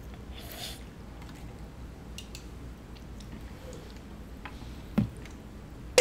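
Soft sipping and swallowing from aluminium soda cans, with scattered small clicks and two sharper clicks near the end.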